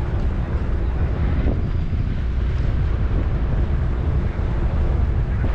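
Wind buffeting the microphone: a steady, gusting low rumble, with a faint steady hum underneath.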